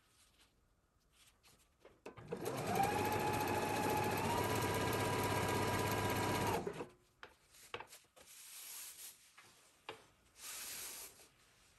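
Electric sewing machine stitching a seam: the motor runs steadily for about four and a half seconds with a whine that steps up slightly in pitch partway through, then stops abruptly. Faint clicks and light handling noises follow.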